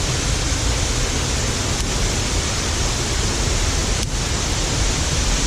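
Steady rush of fast-flowing water from a stream or waterfall.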